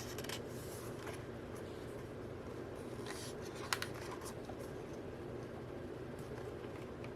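Faint rustling and light clicks of photo-book pages being handled and turned, with one sharper tick just under four seconds in, over a steady low room hum.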